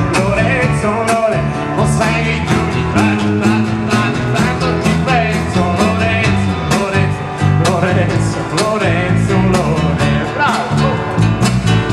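Live band playing an upbeat song through a PA: a drum kit keeping a steady beat under acoustic and electric guitars, with singing over them.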